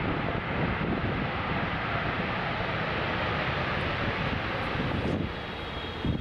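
Jet airliner engines during a landing, a steady loud rushing noise that eases a little about five seconds in, with gusty wind rumbling on the microphone.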